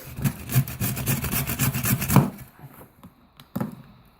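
Hand saw cutting through a Christmas tree branch in quick back-and-forth strokes, stopping a little over two seconds in; a single knock follows about a second later.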